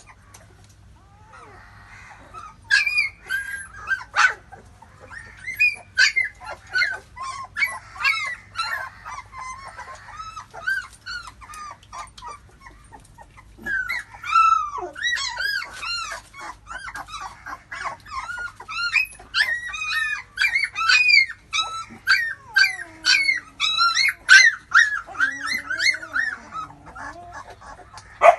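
Labrador puppies squeaking and whimpering as they nurse: many short, high-pitched cries overlapping, several a second, with a brief lull about halfway through.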